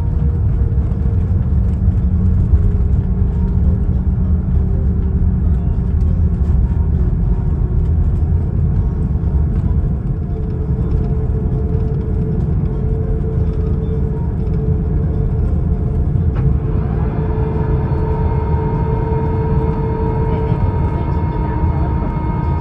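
Cabin noise inside an Airbus A330-900neo airliner: a loud, steady low rumble. About sixteen seconds in, a whine from its Rolls-Royce Trent 7000 engines rises in pitch, then holds steady.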